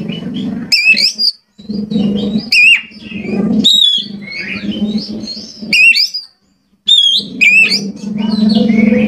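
Oriental magpie-robin (kacer) singing loudly in quick phrases of sharp, rising and falling whistles mixed with harsh, raspy notes. The song pauses briefly twice.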